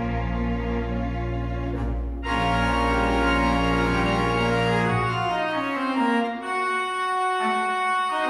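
Theatre organ playing sustained chords over deep pedal bass. About five seconds in, a descending run of notes leads into higher held chords without the bass.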